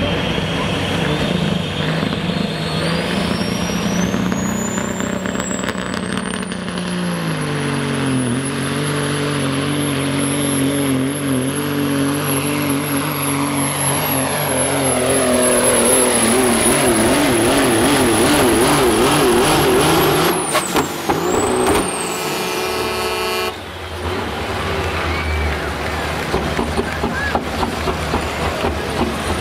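Pulling semi truck's turbocharged diesel engine at full power hauling the sled, its turbo whine climbing to a high steady whistle over the first several seconds. About twenty seconds in the throttle drops and the whine falls away, followed by a short air hiss and the engine running at a lower, steadier note as the run ends.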